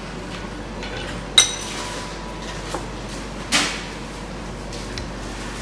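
A metal knife clinks down on a granite countertop about a second and a half in, ringing briefly. A duller knock and scrape follow about two seconds later as a rolling pin is set on the dough and rolling begins.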